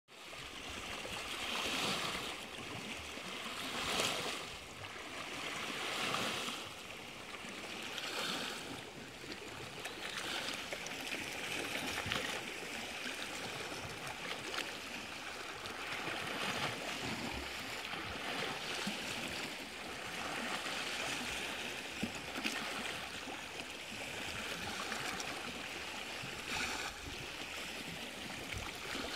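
Small Lake Superior waves lapping and splashing against a sandstone shore ledge, the wash rising and falling every couple of seconds.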